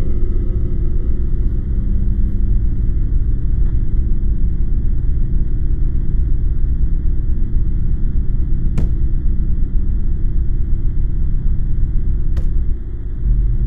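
Steady, loud, low ominous drone of a horror film's sound design, with two brief clicks late on.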